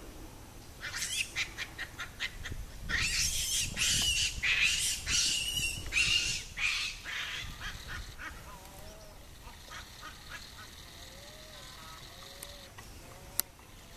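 A series of loud, rapid animal calls, several a second, from about a second in until about seven seconds in, then fainter calls and a single sharp click near the end.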